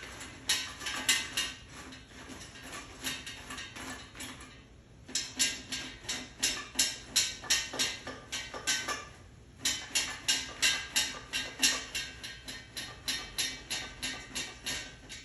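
A cat making a rhythmic clattering noise, about three sharp strikes a second, in runs broken by two short pauses.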